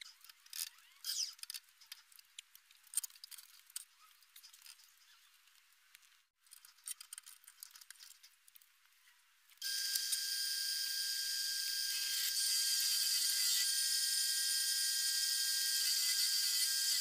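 Faint scattered taps and rustles, then about ten seconds in a Bernardo wood lathe starts running. It keeps a steady high whine and hiss as a gouge cuts shavings from the spinning walnut blank.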